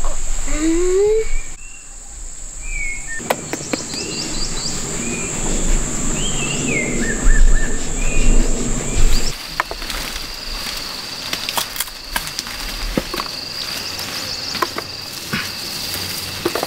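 Forest ambience of insects droning on a steady high note, which switches abruptly to a lower steady note about nine seconds in. Over it come short chirping calls and scattered clicks and rustles.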